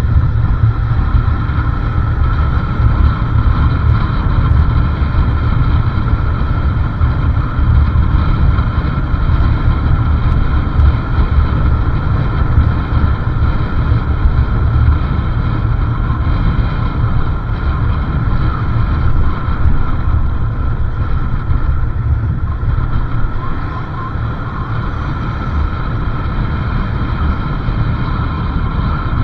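Riding on a motorcycle: heavy wind buffeting on the microphone over the steady running of the engine and road noise. It gets a little quieter about three-quarters of the way through.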